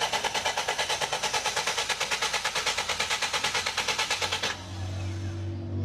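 Car engine being cranked by its starter motor, a fast even chugging that does not catch, typical of a hard-starting engine. The cranking cuts off abruptly about four and a half seconds in and background music begins.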